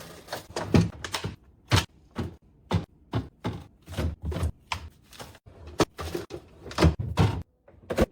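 Groceries and condiment bottles being set onto refrigerator shelves: a run of knocks, clunks and taps, about two a second, which stops near the end.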